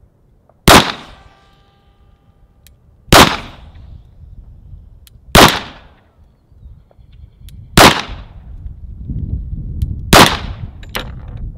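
Five single pistol shots, spaced about two and a half seconds apart. The first is followed by a brief ringing tone.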